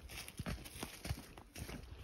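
Footsteps crunching through dry leaf litter on a forest trail at a steady walking pace.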